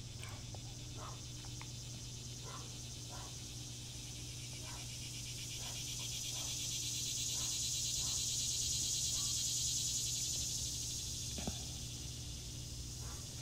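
Added cicada sound effect: a fast pulsing buzz that swells up in the middle and fades again, with short chirps repeating about once a second.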